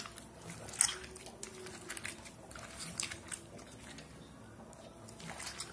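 Wet squelching of salted, rinsed bottle gourd pieces squeezed by hand in a steel pot to press the water out, in short irregular squishes, the sharpest about a second in.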